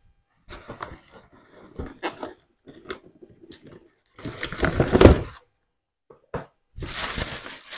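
Cardboard box and plastic wrapping being handled as a new stainless steel pot is unpacked: irregular rustling, crinkling and light knocks. A louder, denser stretch of crinkling runs for about a second around four to five seconds in, and more crinkling follows near the end.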